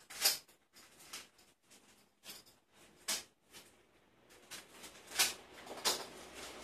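Plastic packaging wrap being cut open with a small knife and handled, giving irregular rustles and crinkles with a few sharper crackles.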